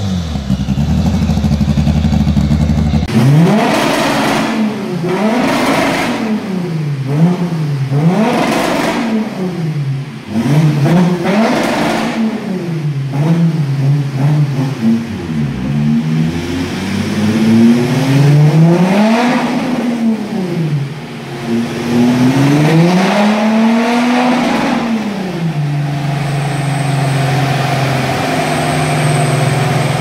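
Remapped Audi A5 3.0 TDI V6 diesel with a Milltek exhaust, revved again and again in quick blips from idle, with a few sharp pops among the revs. Two longer revs come past the halfway mark before it settles back to a steady idle.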